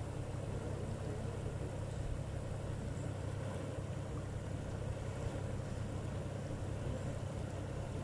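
A Jeep's engine running steadily at low revs as it wades across a river ford: a low, even drone.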